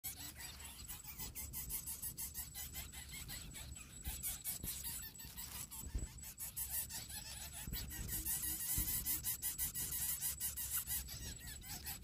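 Lesser coucal nestlings squeaking and stirring in their grass nest: a fast run of high, squeaky clicks.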